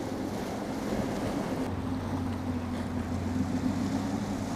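A boat motor running with a steady hum, over the wash of surf and wind.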